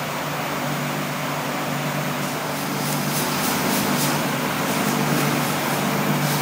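Commercial planetary stand mixer running: a steady motor hum with its beater churning a crumbly mixture in the steel bowl. Light ticks come in over the hum from about two seconds in.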